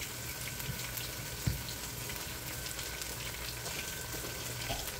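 Onions frying in oil in a pot, a steady sizzle, with one soft knock about a second and a half in.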